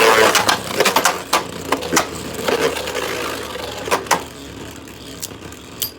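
Two Beyblade spinning tops, a custom 3D-printed Agèma Ares and a Guilty Longinus with metal parts, whirring and clashing in a battle stadium, with repeated sharp clacks as they collide. The whirring is loudest at the start and fades as the tops lose spin.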